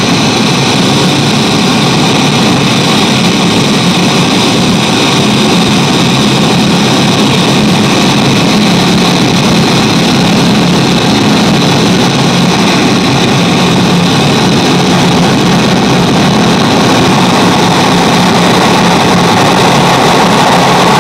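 Xiaojia Studio noise generator pedal putting out steady noise through a Nux Atlantic delay and reverb pedal and a Yamaha THR guitar amp. It is a loud, continuous hiss with faint held tones running through it, growing slightly louder toward the end.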